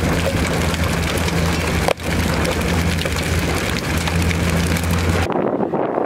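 Hail falling, a dense rattle of many small impacts, over the steady low hum of a vehicle engine running. About five seconds in it gives way to wind buffeting the microphone.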